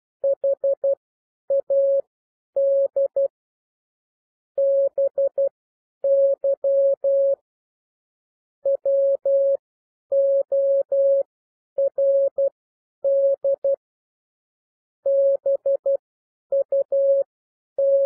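Morse code at 12 words per minute: a single steady tone keyed into short dits and long dahs, spelling out the words "had", "by", "word" and the start of "but", with short gaps between letters and longer gaps between words.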